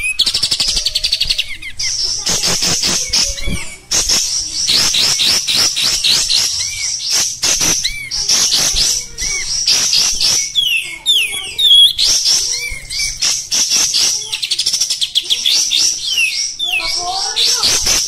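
Kapas tembak (olive-winged bulbul) singing without a break: a rapid, coarse chatter of fast repeated high notes, with lower hooked, whistled notes mixed in.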